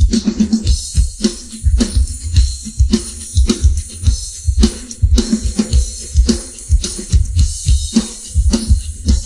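Isolated rock drum kit with no other instruments: kick drum hitting several times a second in a busy pattern, with snare and tom strikes over a constant wash of cymbals and hi-hat.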